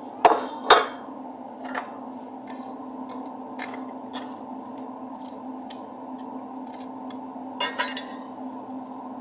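Metal utensil clinking against a cast iron skillet while bread toasts in oil: two sharp clinks just after the start, a close pair near the end, and scattered faint ticks between, over a steady low hum.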